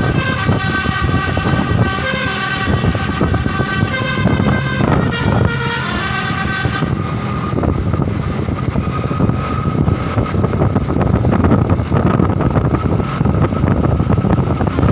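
Bus 'telolet' horn: a multi-tone musical air horn playing a tune of changing notes for about the first seven seconds. After that the bus engine and road noise take over, with one faint held tone.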